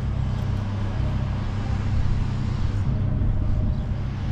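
Low, steady rumble of a car engine running close by.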